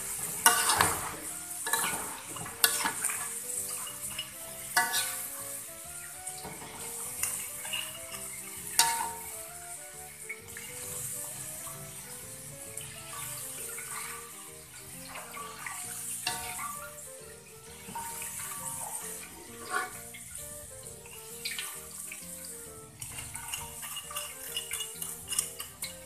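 Crinkle-cut potato fries being scooped out of hot oil with a wire-mesh strainer: the oil sizzles while the metal strainer knocks and scrapes against the wok several times.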